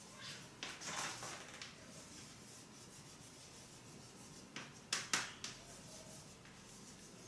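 Handwriting: faint scratchy strokes of a pen or marker writing out a line of working, with three sharper, louder strokes close together about five seconds in.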